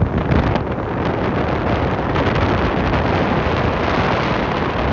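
Strong wind buffeting the microphone: a loud, gusty rush of noise.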